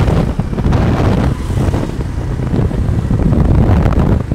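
Wind buffeting the microphone on a moving motorcycle, mixed with the motorcycle's engine and street traffic noise.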